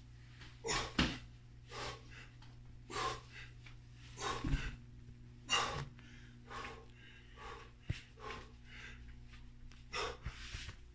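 A man breathing hard from exertion while pressing kettlebells on an incline bench: short, forceful breaths about once a second.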